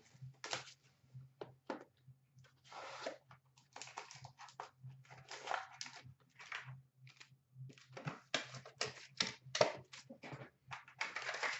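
Cardboard trading-card box being opened by hand: irregular rustling, scraping and clicking as the lid and inner tray are pulled apart and a sealed pack is set down on a glass counter, over a low steady hum.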